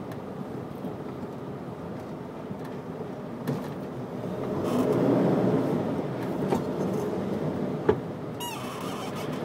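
Steady city street traffic noise that swells about halfway through as a vehicle passes close, with a few sharp clicks and a brief high squeal near the end.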